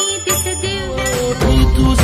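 Background music from a devotional song in an instrumental stretch, with bell-like percussion keeping a steady beat of about four strokes a second; a heavier bass comes in about two-thirds of the way through.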